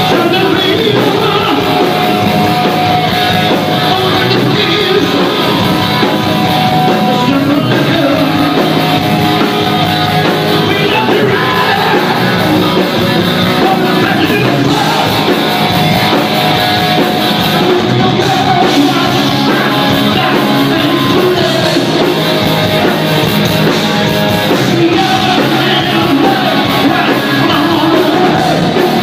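Loud rock music with singing and a steady, dense guitar-band sound.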